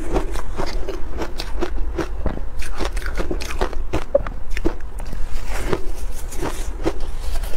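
Shaved ice dusted with matcha powder being bitten and chewed close to a clip-on microphone: a quick, irregular run of crisp crunches.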